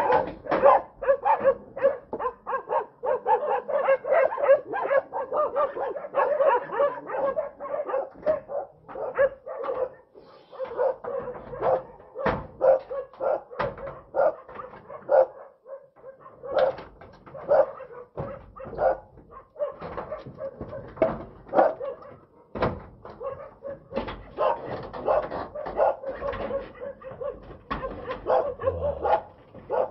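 Dog barking rapidly and without let-up, alarm barking at a bear close by, with higher yips mixed in. A few sharp knocks stand out among the barks.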